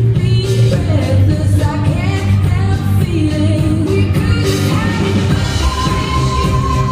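Pop-rock music with a steady beat and a sung vocal line; a high note is held from about two-thirds of the way in.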